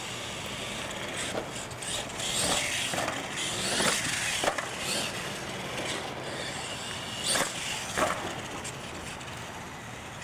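Radio-controlled monster truck driving on concrete: its motor running and tyres scrubbing. Several sharp knocks and clatters come from the truck over the ramps and obstacles.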